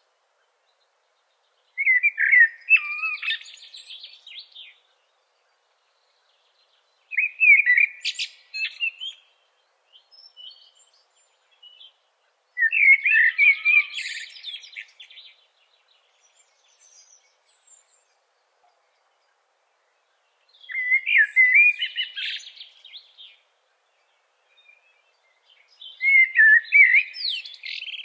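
A songbird singing: five short whistled phrases of about two seconds each, separated by pauses of a few seconds.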